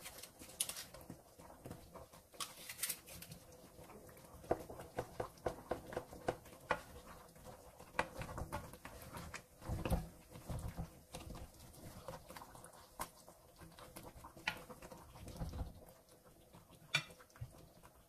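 Coconut milk simmering in a frying pan, with many small irregular bubbling pops. Around ten seconds in, a spatula shifting the fish pieces makes a heavier low bump.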